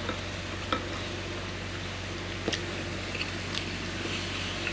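A spoon clicking lightly against a bowl a handful of times as rice and egg are scooped up, over a steady low hum.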